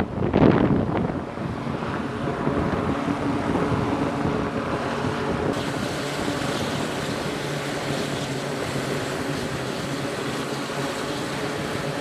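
Twin turboprop engines and propellers of an E-2D Advanced Hawkeye: a loud swell of engine noise about half a second in as the aircraft comes onto the carrier deck, then a steady propeller drone with several steady tones. After a cut at about five and a half seconds the sound turns brighter, the engines running with the aircraft at rest on deck.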